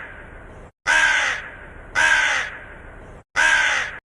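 Crow cawing: the tail of one caw at the start, then three loud, harsh caws about a second apart. The sound cuts off sharply just before the end.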